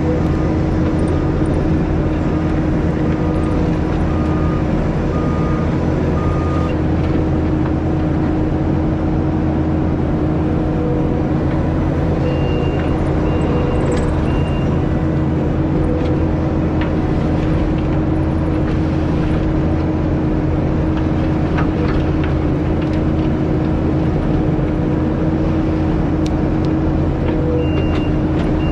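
Diesel engine of compact earthmoving equipment running steadily under work, with a constant low drone. Faint repeating beeps, like a backup alarm, come and go early on and again in the middle and near the end.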